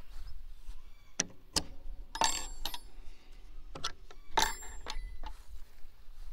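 Steel hook-and-eye latch on a wooden gate being unhooked: a few light clicks, then two ringing metallic clinks about two seconds apart.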